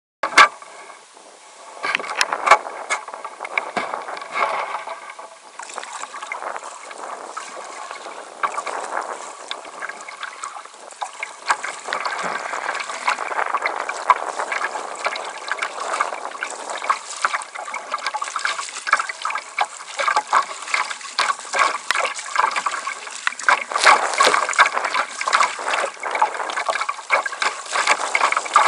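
Choppy river water splashing and slapping against the bow of a wooden kayak under way, a constant patter of small splashes that grows busier and louder in the second half.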